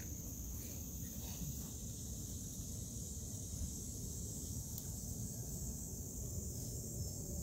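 Steady high-pitched insect chorus over a low rumble of background noise.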